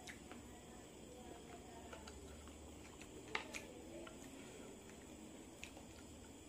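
Faint eating sounds: chicken feet in balado sauce handled on a plate, with a few light clicks, the sharpest about three seconds in.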